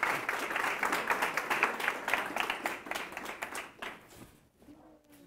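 Audience applauding, dense clapping that thins out and fades about four seconds in.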